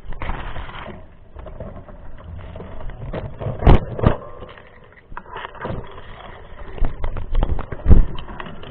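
Mountain bike rattling and rumbling over rough ground, broken by sharp knocks: two close together a few seconds in and the loudest near the end.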